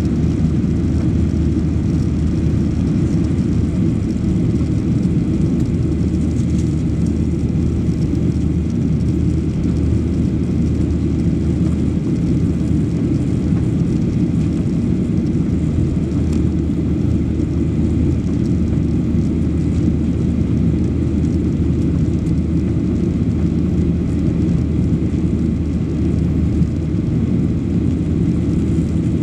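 Steady, low engine and airflow noise inside the passenger cabin of a Boeing 737 Next Generation climbing after takeoff, from its CFM56-7B turbofan engines.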